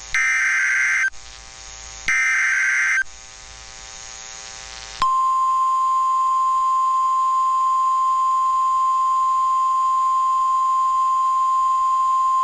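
Two bursts of an Emergency Alert System SAME digital header, each a rapid warbling data screech about a second long, then about five seconds in a steady single-pitch NOAA Weather Radio warning alarm tone of about 1050 Hz that holds. Together they signal that a new warning, here a severe thunderstorm warning, is about to be read.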